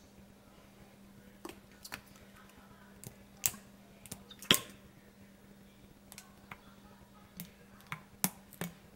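Scattered light clicks and taps, the two loudest a few seconds in, from a plastic Karo corn syrup bottle being held upside down and handled against a measuring cup while the thick syrup slowly drains into it. A faint steady hum runs underneath.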